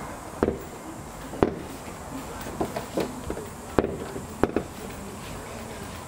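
A series of sharp, irregular knocks and clicks, about eight or nine in all, with the loudest about a second and a half in and again near four seconds in.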